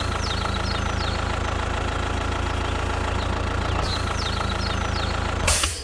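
An engine idling steadily at an even pitch, with a brief burst of hiss near the end.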